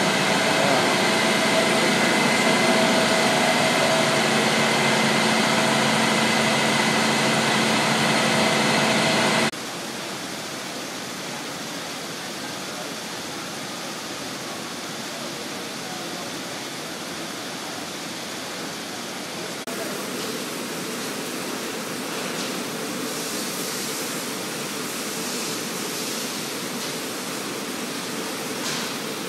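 Steady machinery din of a newspaper printing plant: a loud, even rush with several steady hum tones, which cuts suddenly to a quieter, even rush about nine seconds in.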